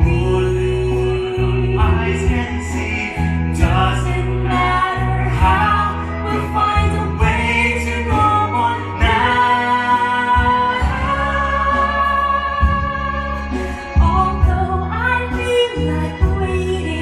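Musical-theatre song: singing with instrumental accompaniment, the voice holding several long notes, with a steady bass underneath.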